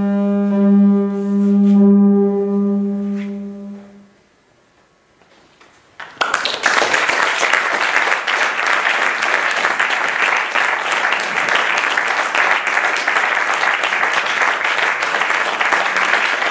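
A sustained electronic drone, one steady low tone with a stack of overtones, fades out about four seconds in. After a short lull, an audience starts applauding about six seconds in and keeps on.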